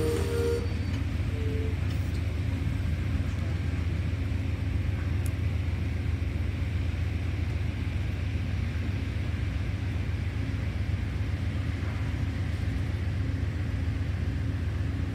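Amtrak passenger cars rolling past at slow speed, making a steady, even low rumble of wheels on rail with no horn or clanks standing out.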